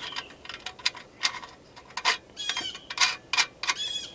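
Irregular small metallic clicks and clinks as a nut and element clamp are handled and threaded onto the heating element's terminal on the pot's metal mounting plate.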